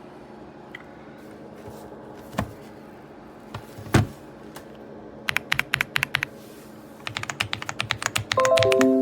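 RedThunder K95 mechanical keyboard with pre-lubed linear switches being typed on: two quick bursts of rapid keystrokes, after a couple of duller thumps. A few sustained musical notes come in near the end.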